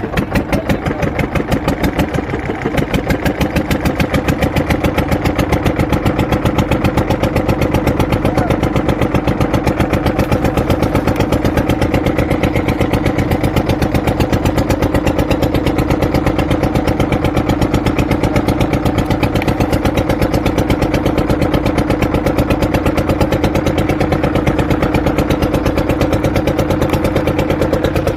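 Wooden fishing boat's engine running with a rapid, even putter, picking up over the first few seconds and then holding steady.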